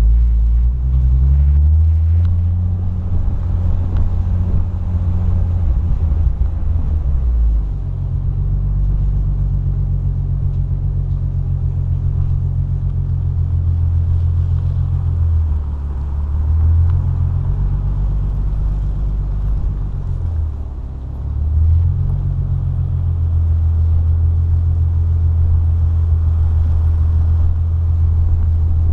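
Nissan 350Z's 3.5-litre V6 engine running as the car drives slowly along a rough road, a low hum that steps down and back up in pitch a few times with the throttle, with a brief lull about twenty seconds in before it picks up again.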